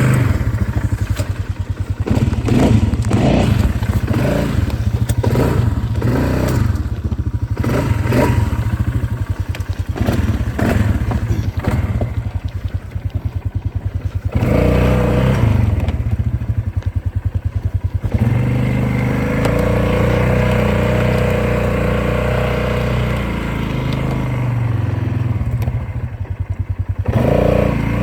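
Engine of a Polaris off-road vehicle running while riding, its revs rising and falling. Clatter and thuds from the machine come through over the engine.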